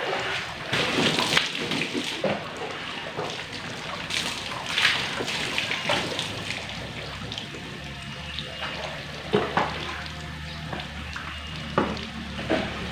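Water poured from a plastic dipper splashing over a motor scooter and onto wet concrete, in several separate pours as the scooter is rinsed down.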